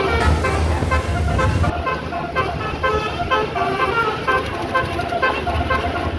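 Bus telolet horn, a multi-tone musical air horn, playing a quick tune of short notes over the low rumble of the bus engine.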